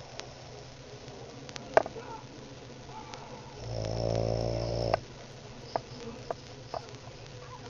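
A man snoring: one loud, buzzing snore lasting just over a second, about halfway through, with quieter breathing either side. A few short sharp clicks, the loudest about two seconds in.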